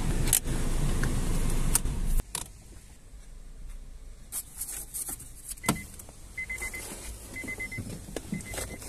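Car engine idling inside the cabin, switched off about two seconds in; then a few clicks and rattles, and the car's warning chime beeping repeatedly, about once a second.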